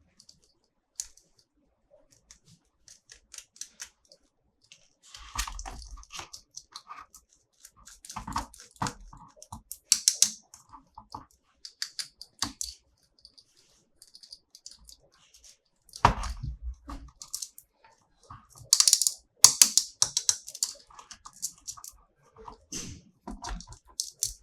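Toy packaging and plastic toy figures being handled: scattered light clicks and taps, with short bursts of rustling a few times, the loudest near the end.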